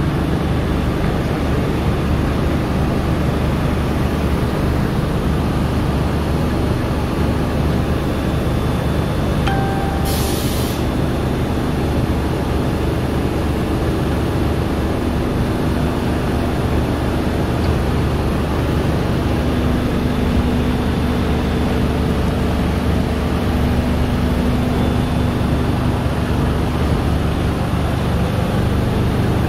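Tubular heat setting machine running: a steady mechanical hum and rumble from its motors and fabric rollers. A short hiss cuts in about ten seconds in.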